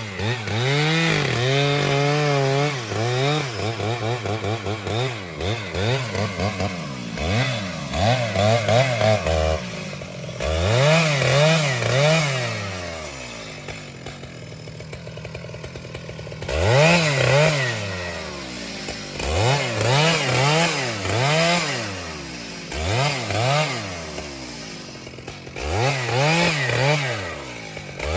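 Chainsaw engine revved up and down repeatedly, its pitch climbing and falling in quick bursts, with a spell of lower, quieter running in the middle.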